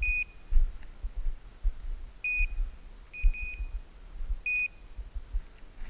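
Short, high electronic beeps from a hunting dog's electronic collar, sounding irregularly every second or two, over low thumping and rumble on the microphone.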